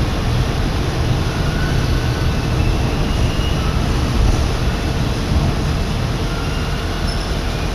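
Steady low rumble of a Kominato Railway diesel railcar running, heard from inside the passenger car.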